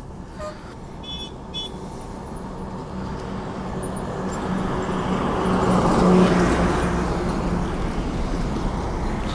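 Highway traffic: a vehicle approaches and passes close, loudest about six seconds in, over a steady engine hum. Two short high toots about a second in.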